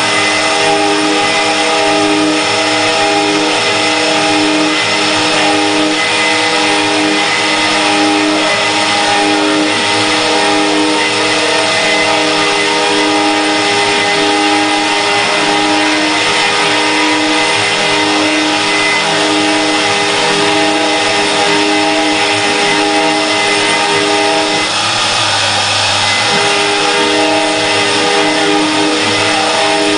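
Multi-head CNC router carving wooden cylinders on rotary axes: the spindle motors run with several steady tones over a dense rasping cutting noise. The tones drop out briefly about 25 seconds in.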